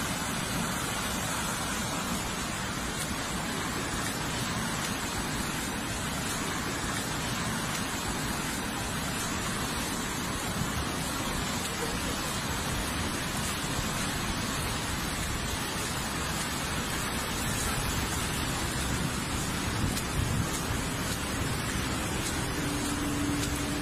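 Steady rushing of a flash-flood torrent of water pouring through a street.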